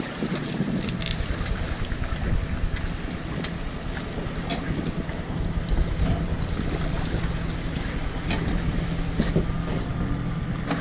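Wind buffeting the microphone over the low, steady hum of an engine idling, with a few light scattered knocks.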